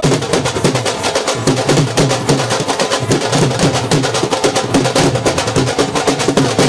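Several Rajasthani dhol barrel drums beaten together in a fast, even rhythm, loud and dense, accompanying folk dancing. The drumming starts abruptly right at the beginning.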